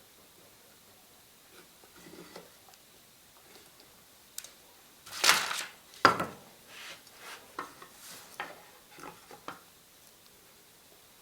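Small wooden pieces and hand tools handled on a workbench: scattered light clicks and rubbing, a louder scrape about five seconds in, a sharp knock just after, then more small knocks.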